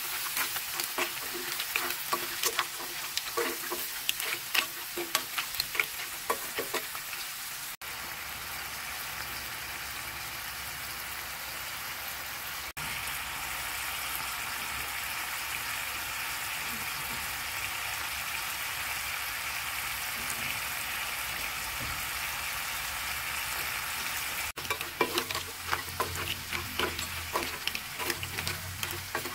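Wooden spoon stirring green mussels and shrimp in a cast iron pan, the shells clattering over the sizzle of butter and garlic. After about eight seconds the stirring stops and a steady sizzle runs on by itself, and the clattering stirring returns about five seconds before the end.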